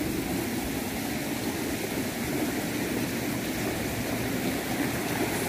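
Water running steadily along a small open channel that feeds a water-powered grain mill.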